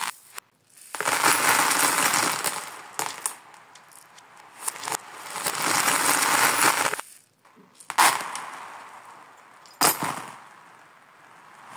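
Handfuls of small plastic beads and trinkets clattering and pattering on a hard floor in several long rushes, played in reverse, so one rush swells and then cuts off abruptly. Near the end come two sharp clattering hits, each trailing away.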